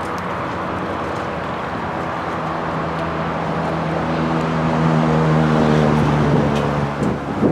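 A railway diesel engine running with a steady humming note that grows louder as the train approaches, ending abruptly about seven seconds in.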